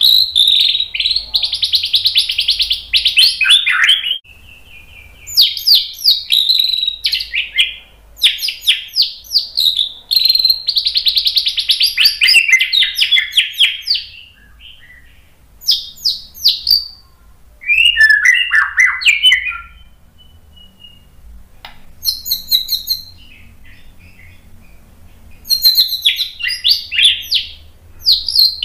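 White-rumped shama singing loud, varied song in bursts of one to four seconds with short pauses between them. The phrases are fast rattling trills and sweeping whistled notes.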